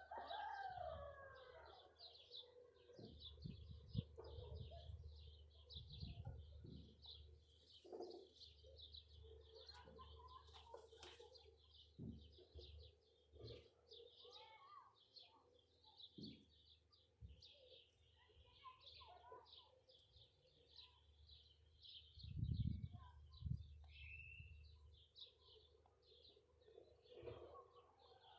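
A flock of small birds chirping busily and without pause, with occasional low thumps that are loudest about three quarters of the way through.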